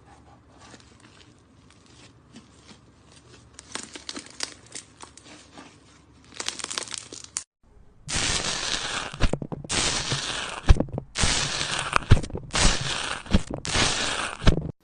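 Slime being pressed and squeezed, crackling and crunching: faint scattered crackles at first, then after a short pause about five loud crunchy squeezes of under a second each.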